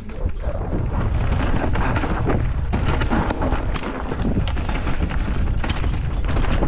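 Wind buffeting the camera microphone and tyres rumbling over dirt singletrack as an e-mountain bike descends, with scattered sharp clicks and knocks from the bike over the trail.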